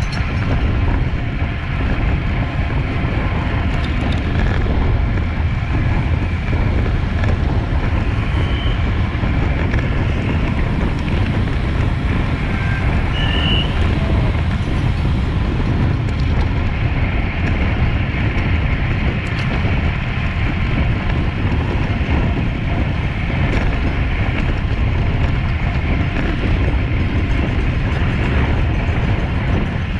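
Steady wind noise over the microphone and road rumble from a road bicycle ridden at race speed, with two brief high chirps partway through.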